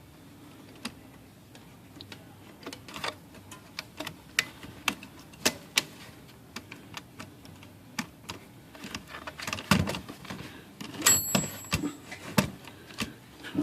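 Smith Corona Silent manual typewriter keys struck one at a time, giving irregular sharp clacks that come faster near the end. The keys are worked to test the newly repaired ribbon drive ratchet, which should advance the ribbon with each stroke.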